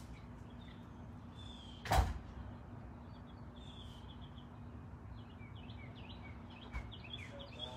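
A door thumps shut about two seconds in, with a lighter knock near the end. Faint high chirps and a steady low hum run underneath.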